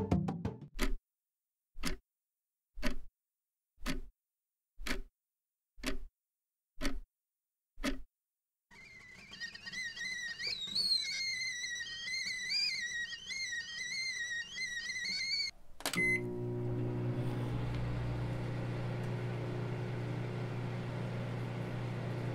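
About eight sharp ticks, one a second, then a stovetop whistling kettle at the boil, its shrill whistle wavering in pitch. After a click and a short beep, a microwave oven runs with a steady hum.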